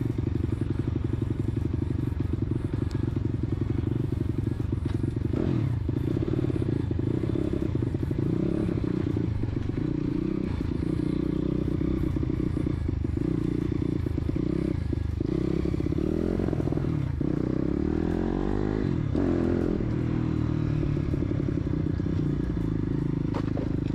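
A 140 cc four-stroke pit bike engine runs through a Scalvini exhaust while being ridden, the revs rising and falling as the throttle is opened and closed, most clearly about five seconds in and again between about 16 and 20 seconds. It is still warming up on a 112 main jet, which the owner thinks runs too rich.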